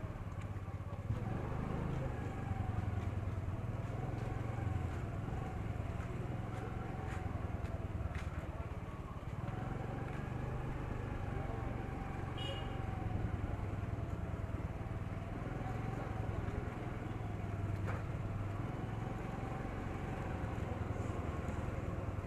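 Busy street ambience: a steady low rumble of motorbike and other vehicle traffic with scattered voices of passers-by, under a wavering steady hum.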